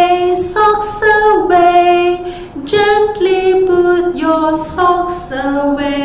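A woman singing a simple children's song unaccompanied, short stepwise notes ending on a long held note near the end.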